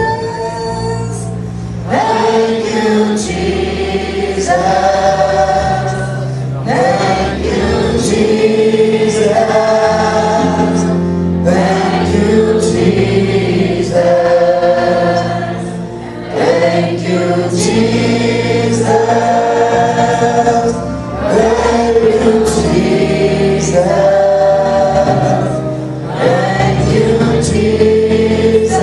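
A church congregation singing a worship song together in long held phrases over instrumental accompaniment with steady low bass notes.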